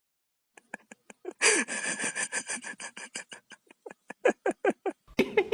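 Rapid rhythmic breathing: a long run of short breathy pulses, about five or six a second, like hard panting or snorting.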